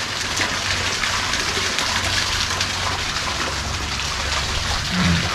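Steady rushing hiss of water, even and unbroken, with no single events standing out.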